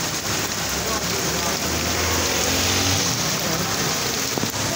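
Heavy monsoon rain pouring onto a wet street as a steady hiss, with a passing vehicle's engine hum rising through the middle.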